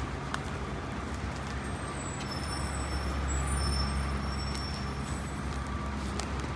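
A road vehicle running steadily, a low engine hum under a constant rushing noise, swelling slightly in the middle.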